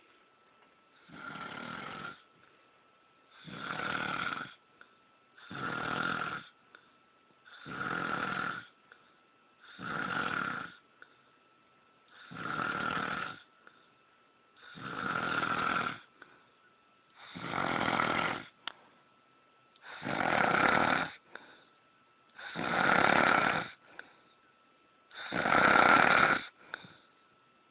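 A man snoring, one rasping snore on each in-breath about every two and a half seconds, the snores growing louder towards the end.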